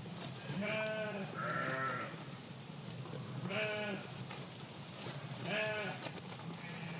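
A flock of sheep bleating: about four separate bleats, each under a second, one of them higher-pitched than the others, over steady outdoor background noise.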